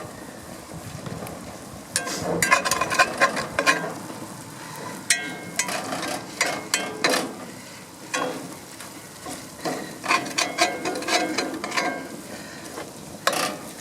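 Sausage and cheese frying in a pan on the grill, with a steady sizzle under repeated scrapes and clicks of a utensil working against the pan.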